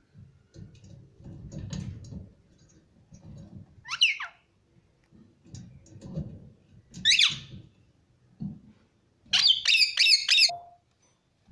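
Pet parrots calling: two rising squawks a few seconds apart, then a quick run of about five sharp calls near the end, over low scuffling noises.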